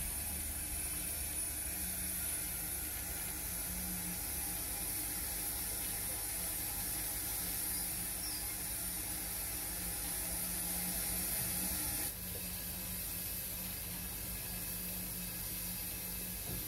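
7mm-scale (0 gauge) model steam tank locomotive running slowly along the track, with a steady hiss over a low hum. The hiss cuts off suddenly about twelve seconds in.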